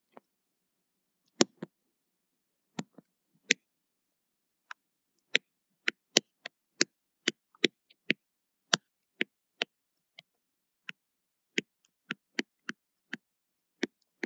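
A stylus tip tapping and clicking on a writing tablet during handwriting: sharp, irregular clicks, a few at first, then about two a second from about five seconds in.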